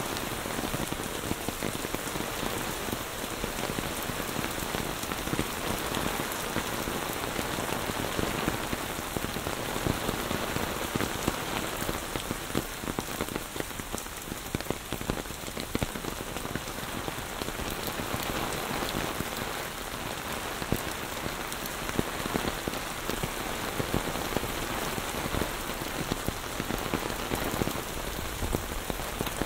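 Heavy rain pouring steadily onto a lawn, a paved path and tropical plants: a dense, even hiss of rain scattered with the ticks of individual drops.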